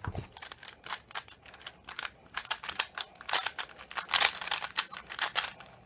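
A Gans 356 V2 3x3 speedcube turned fast during a timed solve: a rapid, irregular clatter of plastic layers clicking and clacking, opening with a low knock.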